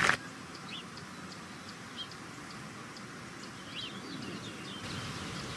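Hushed outdoor ambience with a few short bird chirps scattered through it.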